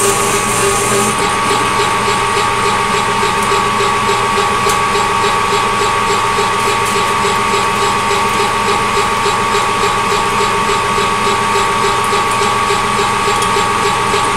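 Metal lathe running steadily, with a whine of several steady tones, while a drill bit cuts a starting hole in the spinning workpiece.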